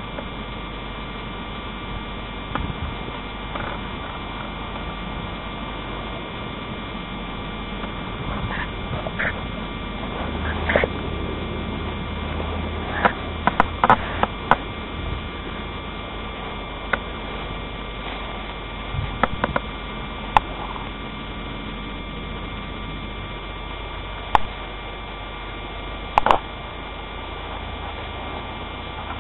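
A steady electrical hum, with scattered faint clicks and knocks now and then, a cluster of them about halfway through and another near the end.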